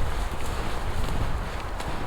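Wind buffeting the microphone in a snowstorm, a steady low rumble, with a few faint knocks.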